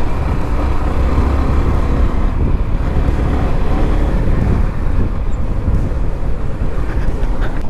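Motorcycle engine running under way with heavy low road and wind rumble on the rider's microphone, a faint engine note wavering in pitch a little in the first half.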